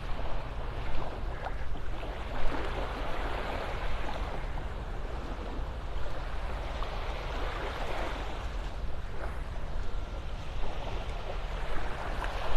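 Small Gulf surf breaking and washing up the sand, the hiss swelling and easing with each wave, over a steady low rumble.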